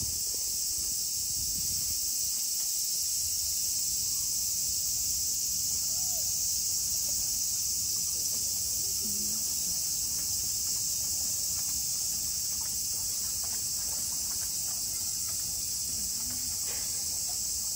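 A summer chorus of cicadas in the park trees: a steady, high-pitched drone that does not pause or change.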